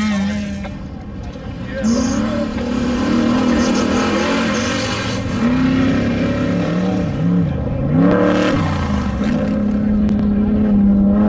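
Off-road race vehicle engine running hard, its revs rising and falling again and again as the throttle is worked.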